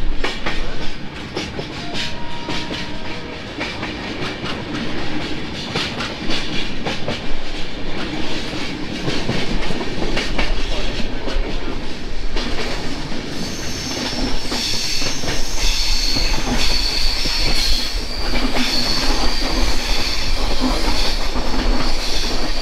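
Hemkunt Express passenger train running, its wheels clacking over the rail joints. From a little past halfway, a high steady wheel squeal joins in as the coaches take a curve.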